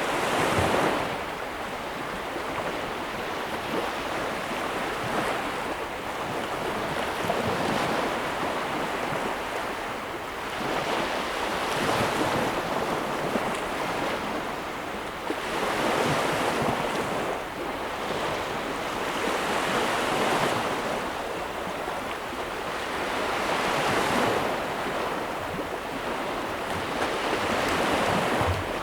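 Ocean surf: waves breaking and washing ashore in a steady rushing hiss that swells and fades, with a new wave peaking about every four seconds.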